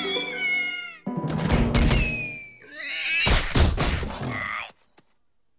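Cartoon soundtrack: falling music notes, then a cartoon cat's cries over sound effects, cutting off suddenly to silence near the end.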